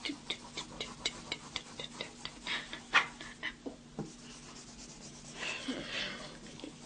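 Handling noise from a handheld camera: a run of irregular clicks and rubs for about three and a half seconds, the sharpest about three seconds in, then a short soft hiss near the end.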